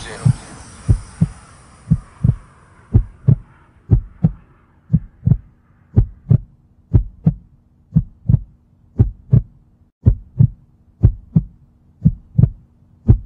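Heartbeat sound effect: paired low thumps, about one pair a second, over a faint steady hum.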